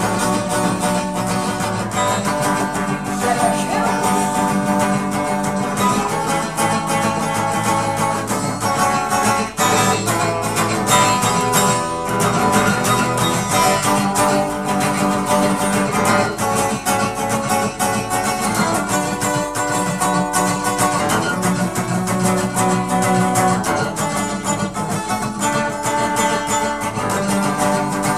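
Acoustic guitar being strummed steadily, a run of chords played without a voice.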